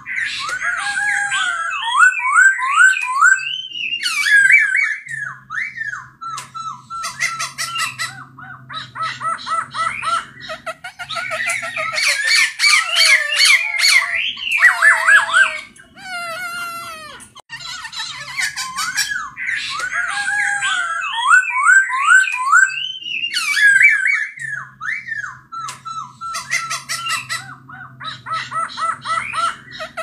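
Caged black-throated laughingthrush (poksay hongkong) singing a long, varied song of sliding whistled notes and quick runs of repeated notes, mixed with harsher rasping calls.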